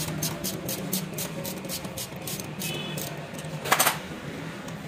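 Hand ratchet wrench clicking rapidly, about seven clicks a second, stopping about three seconds in. A single metal clank follows just before the end. A steady low hum runs underneath.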